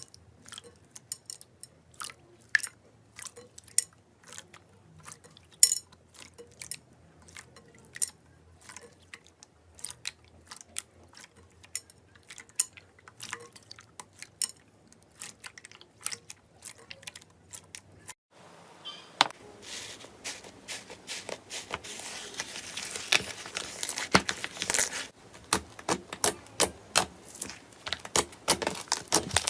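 Slime being handled and squeezed, giving scattered sticky pops and clicks; about eighteen seconds in it changes to a denser, crunchier crackling.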